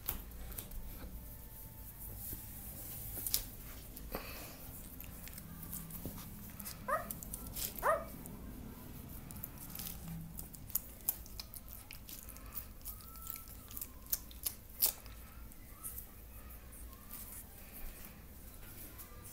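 Doberman puppy giving two short rising squeaks a second apart, about a third of the way in, among scattered sharp clicks and smacks while nursing.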